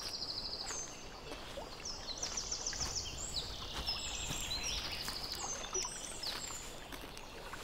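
Small songbirds singing: many high, fast trills that step down in pitch, overlapping one another, over a faint background hiss.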